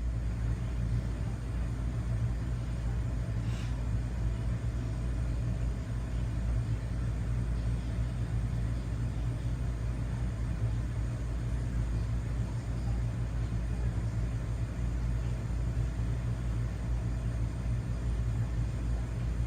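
Steady low rumble with a faint hiss above it, unchanging throughout; a faint click about three and a half seconds in.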